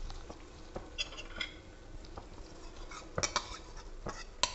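Stink bean seeds tipped from a bowl into a stainless steel kadai, giving scattered clicks and clinks of bowl and seeds against the steel. The loudest knocks come after about three seconds and again near the end.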